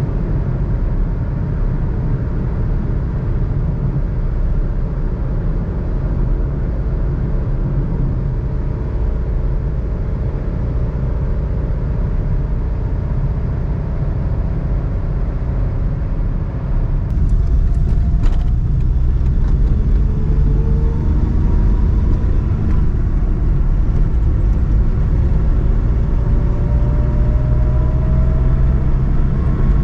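Cabin noise of a 2021 Suzuki Alto's 660cc three-cylinder engine and tyres at highway speed: a steady low rumble at light throttle. About 17 seconds in it gets louder with a click, and an engine tone then rises slowly in pitch.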